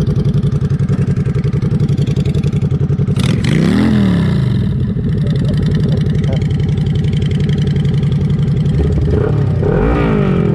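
Motorcycle engine idling with an even, pulsing beat, blipped once about three seconds in (pitch rising, then falling back) and again near the end.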